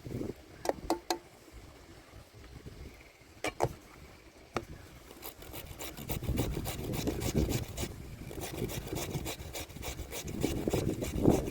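Raw potatoes being grated by hand on a grater, with repeated rasping strokes. A few separate knocks come in the first half, and the grating runs steadily from about halfway on.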